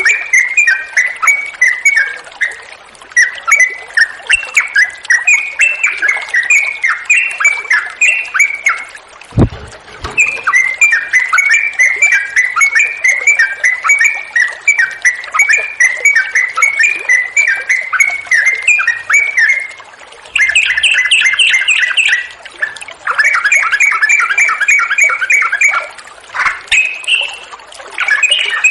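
Yellow-vented bulbul singing a long, rapid run of chattering, bubbling notes, several a second, in its 'ropel' style, which gets denser and faster in the later part. A single low thump comes about nine seconds in.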